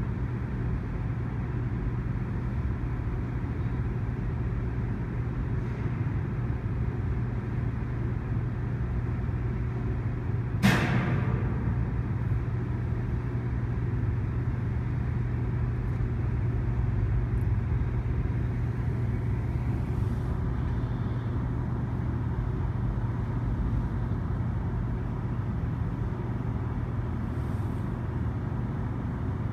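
Steady rumble of a CN freight train of autorack cars rolling past, with a constant low hum. One sharp metallic clank rings out about ten seconds in.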